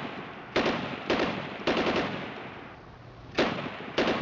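Automatic gunfire: several short bursts of rapid shots, each with a sharp start and a fading echo, a second or so apart with one longer gap.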